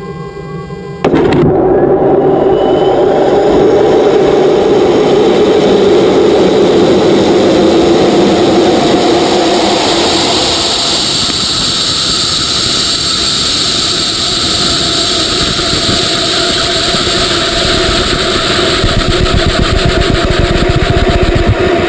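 GoFast rocket's motor igniting with a sudden loud onset about a second in, then a steady roar as the rocket climbs, heard through its onboard camera.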